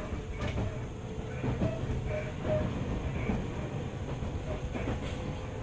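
Onboard running sound of a JR 205 series electric commuter train: a steady rumble of wheels on rail with scattered clicks from rail joints and a faint steady hum. A few short, faint squeaks come about two seconds in.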